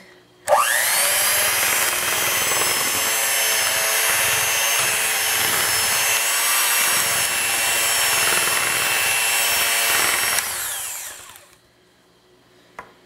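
Electric hand mixer running, its beaters cutting butter into a dry flour, cornstarch, salt and sugar mixture toward a coarse-meal texture. The motor whirs up rising in pitch about half a second in, runs steadily for about ten seconds, then winds down with falling pitch.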